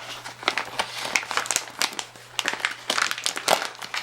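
Plastic treat-bag packaging crinkling and crackling in irregular bursts as it is handled and opened.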